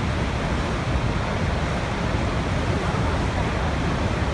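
Niagara Falls: a steady, loud rush of falling water, with most of its weight in a deep low rumble.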